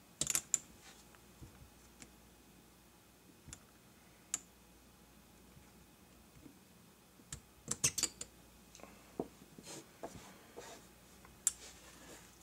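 Short, sharp metallic clicks and clacks of a Kimber Custom II 1911 pistol being taken apart by hand: a pair just after the start, a few scattered single clicks, and a quick cluster of clicks about two-thirds of the way through.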